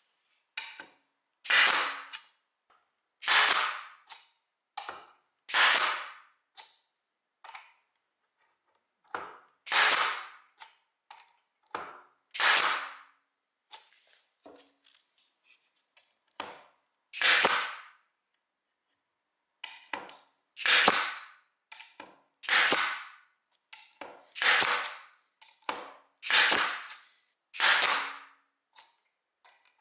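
Pneumatic air stapler firing again and again, each shot a sharp crack that fades over about half a second, coming every one to three seconds at uneven gaps, with fainter clicks between shots.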